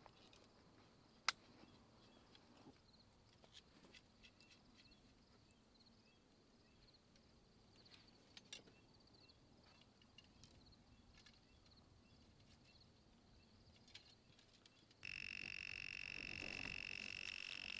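Near silence: faint open-field ambience with a few faint scattered calls and ticks. About fifteen seconds in, a steady high-pitched electronic whine with hiss cuts in abruptly.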